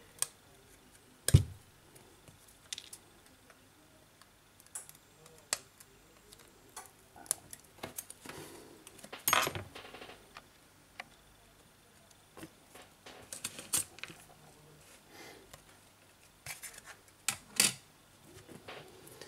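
Scattered small clicks and taps of hand work on a Samsung Galaxy S8+: metal tweezers and the phone's glass back cover being handled and set down on the bench. The sharpest click comes about a second in, with a busier run of taps around the middle.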